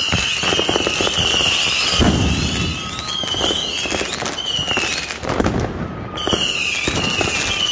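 Fireworks going off in quick succession: dense crackling pops and bangs, with a few deeper heavy bangs. Over them, high whistles each fall slightly in pitch, repeating about once a second.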